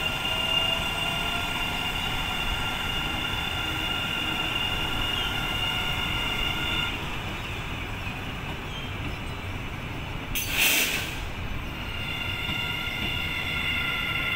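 KTM Komuter electric multiple unit running past on the rails: a steady rumble with a high-pitched whine that stops about seven seconds in and returns near the end. A brief loud hiss about ten and a half seconds in.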